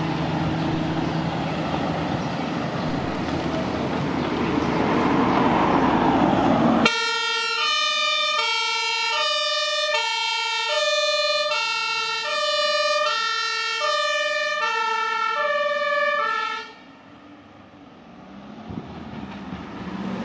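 Compressed-air two-tone Martinshorn of a fire brigade command van, alternating high and low tones about once every 1.2 s for roughly ten seconds, then stopping abruptly. Before it, a loud rushing noise builds and cuts off suddenly. After it there is only faint traffic noise.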